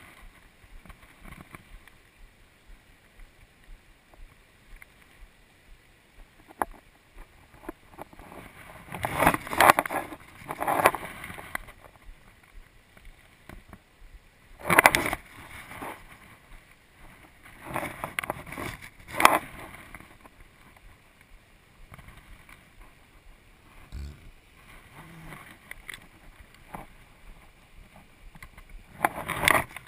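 Steady rush of a river's current over rocks, broken several times by short, loud bursts of noise.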